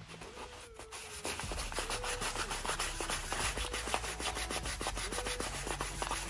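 A metal hydrostatic transmission pump part is rubbed by hand in a circular motion on wet 1500-grit sandpaper, a run of repeated scraping strokes that grows louder about a second in. The part is being lapped to smooth a slightly worn mating surface.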